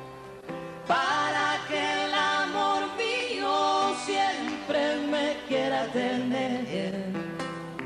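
Plucked acoustic guitar, joined about a second in by a man's and a woman's voices singing a duet in sustained lines with vibrato.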